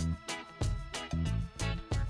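Upbeat background music with a bass line, its notes and beats coming about twice a second.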